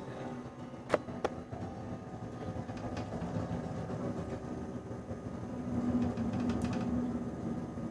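Slow, sustained music from an instrumental studio jam: a held low drone with other long notes over it, a sharp click about a second in, and a swell near six seconds.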